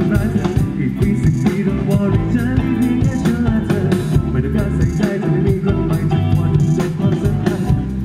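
Live rock band playing through a PA: electric guitar, bass guitar and drum kit keep a steady beat throughout.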